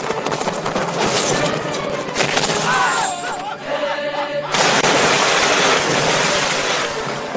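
Dense battle sound effects from an action film: a continuous din of crashing, rumbling impacts and flying debris. A brief wavering high cry comes about three seconds in, and a sudden louder crash about four and a half seconds in.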